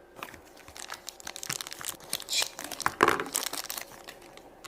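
Plastic toy packaging crinkling and rustling as it is handled and opened, in a run of small crackles with a louder crackle about three seconds in.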